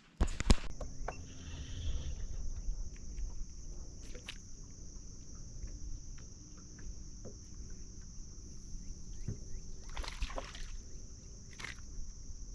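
Outdoor ambience on a fishing boat: a steady, high-pitched insect drone over a low rumble, with scattered small clicks and knocks and a louder clatter about ten seconds in.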